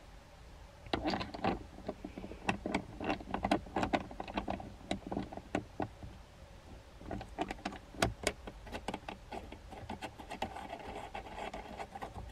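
Irregular clicks, taps and rattles of a plastic phone mount being handled and fitted onto a dash-mount arm, with a sharper knock about eight seconds in.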